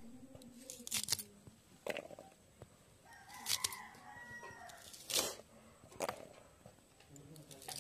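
Sharp snaps and cuts as peeled taro stems are chopped into pieces against a curved iron blade, several times over. A rooster crows once in the middle, a call lasting about a second and a half.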